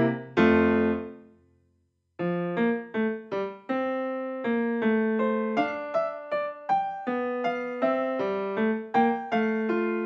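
Background music on piano. A chord dies away to a brief silence about two seconds in, then the piano resumes with a steady run of notes.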